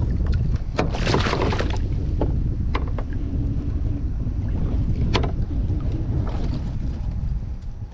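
Wind buffeting the microphone in a steady low rumble, with a brief burst of noise about a second in and a few sharp clicks.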